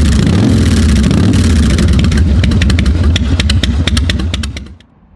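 Motorcycle engine running loud and steady, with sharp crackles over it, cutting off suddenly near the end.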